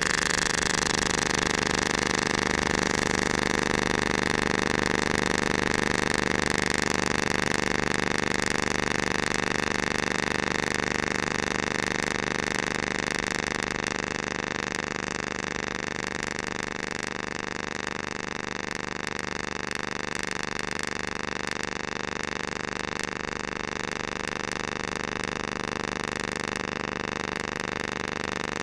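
AC TIG welding arc on aluminium at 230 amps from a 2.4 mm purple E3 tungsten electrode, burning steadily with the torch held in one spot: a steady buzz made of many even tones. It drops slightly in loudness about eleven seconds in.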